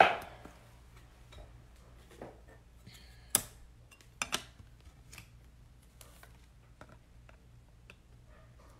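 Quiet clicks and taps of a trading card being handled and fitted into a magnetic one-touch card holder. There is one sharp click about three and a half seconds in and a quick double click about a second later.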